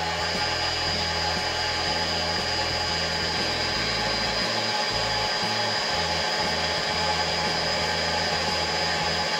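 Lens edging machine running steadily with a constant high whine as it cuts and drills a 1.74 high-index eyeglass lens for a rimless frame. Background music plays under it.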